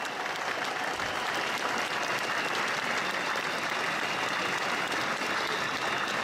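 Large crowd applauding steadily, thousands of hands clapping in a continuous wash, greeting a speaker who has just been introduced.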